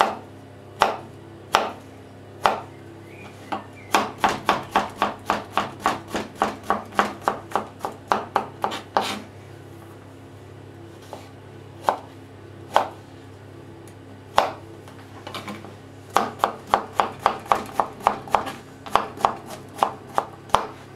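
Chef's knife chopping zucchini into small dice on a plastic cutting board: a few separate cuts, then two quick runs of about four chops a second, over a low steady hum.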